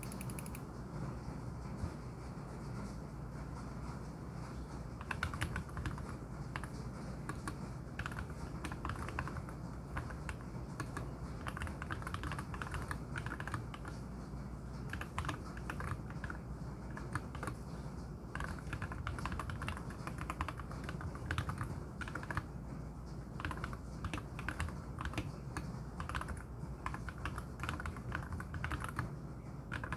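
Fast, continuous typing on a MelGeek Z70 Ultra mechanical keyboard with lubed KTT Wine switches and MA-profile spherical keycaps, a quick patter of keystrokes beginning about five seconds in. The keystrokes have a deep, wood-block-like sound.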